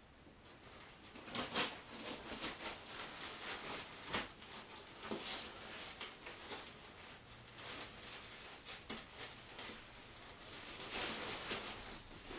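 Rustling and crinkling of a folded nylon pop-up tent and its round carry bag being handled, in uneven bursts with a few sharp clicks.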